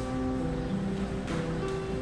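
Background music: a slow melody of held notes that change pitch every half second or so, over a steady soft rushing noise.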